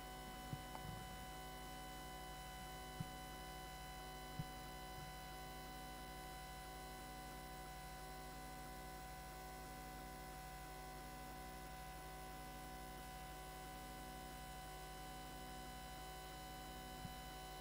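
Faint steady electrical hum made up of several constant tones, with a few small clicks in the first few seconds.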